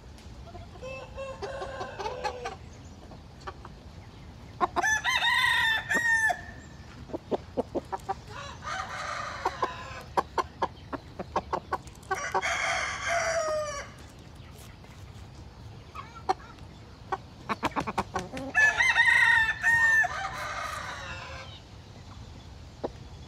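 Roosters crowing again and again: about five crows, each one to two seconds long, three of them loud and two fainter, as from farther birds. Between the crows come runs of short clucks.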